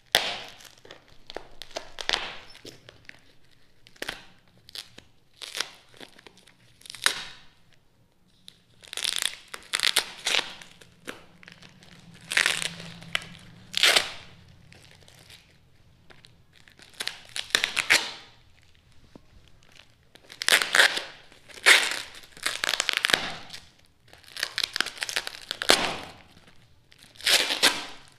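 Packing tape and plastic wrapping being torn and crinkled off a parcel by hand, in repeated irregular rips and rustles.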